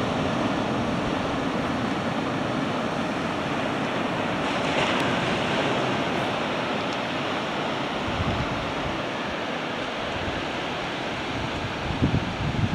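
Ocean surf breaking and washing up the beach in a steady rush, with low rumbles of wind on the microphone about 8 seconds in and again near the end.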